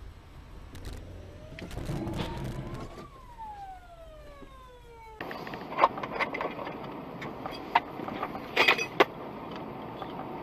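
A siren wails once, rising in pitch for about two seconds and falling for about two more, then cuts off. Road noise follows, with a run of sharp knocks and clicks, the loudest in a cluster near the end.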